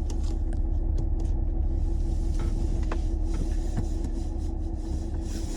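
Steady low rumble of a vehicle with a faint steady hum and a few light clicks.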